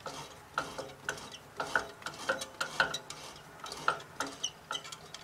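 Larger drill bit twisted by hand in a drilled bolt hole of a steam engine cylinder casting to deburr the hole edge. It makes short metal scraping clicks, unevenly spaced at about two or three a second.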